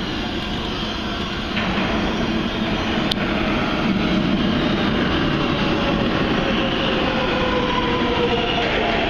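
New York City subway train approaching through the tunnel, unseen: a steady rumble that grows louder about a second and a half in, with a faint whine that slowly falls in pitch in the second half.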